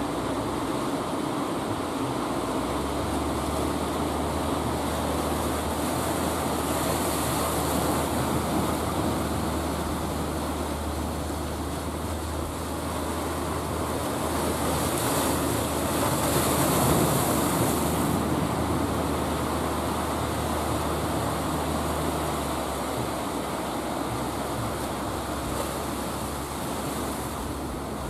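A wooden fishing boat's engine droning steadily in a low hum as the boat runs in through the surf, over the rush of breaking waves that swells up twice. The engine hum stops about three quarters of the way through, leaving the surf.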